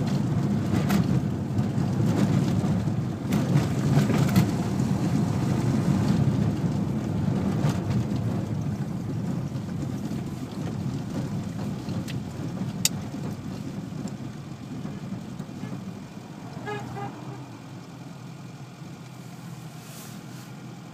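Car engine and tyre noise heard from inside the cabin while driving, fading steadily as the car slows almost to a stop. A few sharp clicks come along the way.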